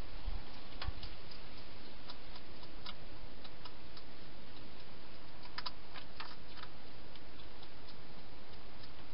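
Wild hedgehog feeding at bowls inside a plastic feeding station: irregular small clicks and crunches, bunched together about six seconds in, over a steady hiss.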